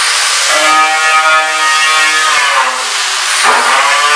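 Angle grinder with a poly strip disc whining as it strips black primer off the steel front panel of a VW campervan, a steady motor whine over the hiss of the disc on the paint. The whine dips in pitch briefly twice as the disc bears on the panel.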